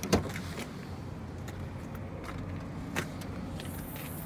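The rear cargo door of a Jeep Wrangler being opened: a sharp latch click near the start and a lighter knock about three seconds in, over steady low background noise.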